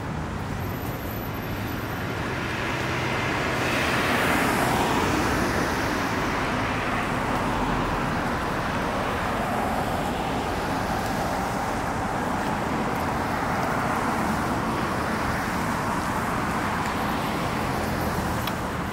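Steady road traffic noise with cars going by, swelling loudest as one passes about four seconds in and again less strongly later on.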